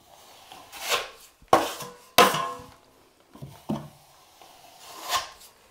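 Steel drywall taping knife scraping a tight skim coat of joint compound across drywall: about five strokes with sudden starts, some ending in a short metallic ring from the blade.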